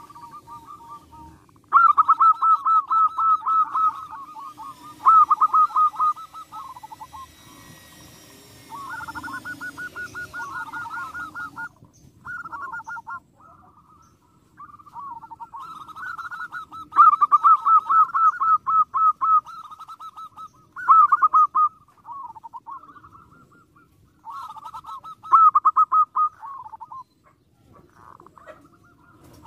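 Zebra doves (perkutut) calling: a series of rapid, stuttering cooing phrases, each a second or two long, repeated with short pauses between them.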